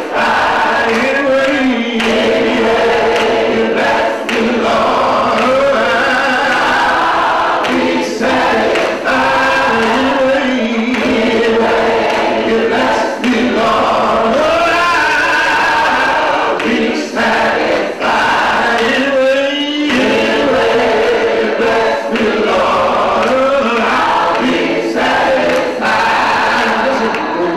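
Gospel choir singing at full voice, with a male lead singer on a handheld microphone.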